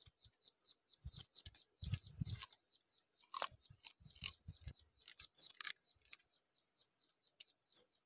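Chewing and crunching of raw lettuce and crisp green vegetables eaten by hand, with a cluster of crunchy bites in the first couple of seconds and a few sharper crisp snaps later. Underneath, a steady high insect chirp repeats about five times a second.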